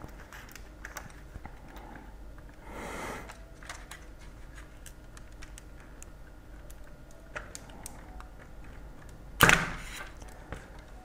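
Faint scattered clicks and ticks of metal tweezers on the plastic instrument cluster as they work the needle stepper motor's locking arms, with a short soft hiss about three seconds in and one louder brief noise near the end.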